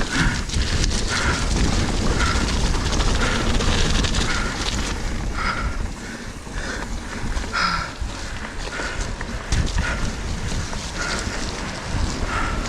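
Mountain bike descending a muddy trail: a steady rush of wind and tyre rumble, with short squeaks repeating every second or so.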